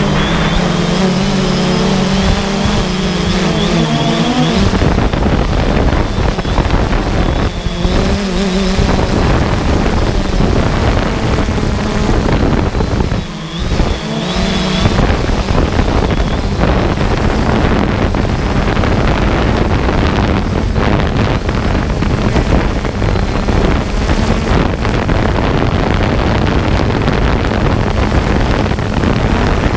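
3DR Solo quadcopter's electric motors and propellers, heard from the GoPro mounted on the drone: a steady whine whose pitch wavers in the first few seconds, then mostly a rough rushing noise from the props and wind, with the whine coming back briefly twice.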